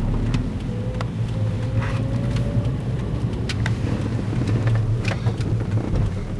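A car's engine and road noise heard from inside the cabin while driving, a steady low hum with scattered light clicks.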